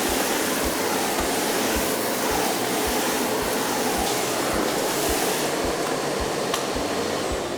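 Miele Blizzard CX1 bagless canister vacuum cleaner running steadily, a constant rush of suction as its universal floor head, set for hard flooring, is pushed over the floor.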